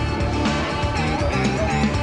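Rock music with guitar over a steady drum beat and bass line.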